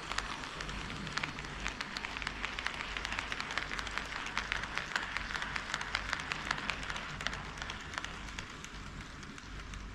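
HO-scale model train running on KATO Unitrack, its wheels clicking rapidly over the rail joints over a running rattle. It gets louder toward the middle as it passes close by, then fades.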